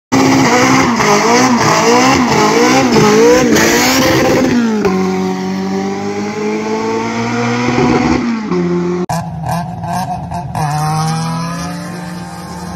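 Honda K-series four-cylinder drag cars at full revs. For the first few seconds the engine pitch wavers quickly up and down with tyre squeal, then settles into a steady high-rev pull that slowly drops in pitch as the car runs away. After a cut about nine seconds in, another engine revs up with rising pitch.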